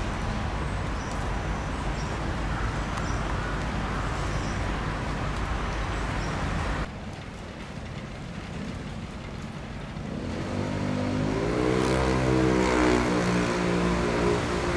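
Outdoor traffic hum. After a cut about seven seconds in it is quieter, then about ten seconds in a vehicle engine rises in pitch as it speeds up and stays loud to the end.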